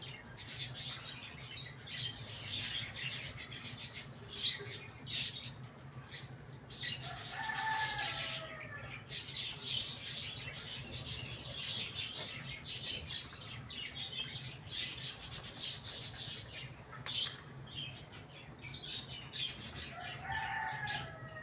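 A crowd of small birds chirping and chattering continuously, with a lower, drawn-out chicken call about seven seconds in and again near the end.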